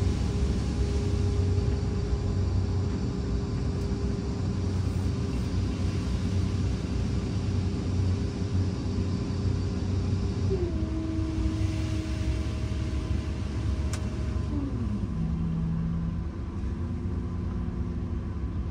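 Sennebogen material handler's diesel engine and hydraulics running, heard from inside the cab: a steady low rumble with a whining tone. The tone steps down in pitch about two-thirds of the way through, then slides lower again a few seconds later as the machine's revs drop.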